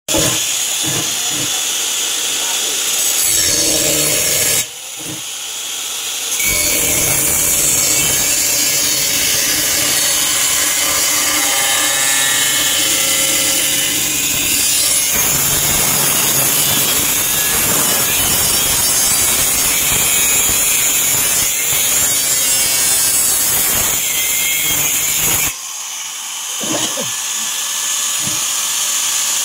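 A power tool cutting sheet-metal cable tray to form an elbow, running steadily with a loud high hiss, easing off briefly about five seconds in and again near the end.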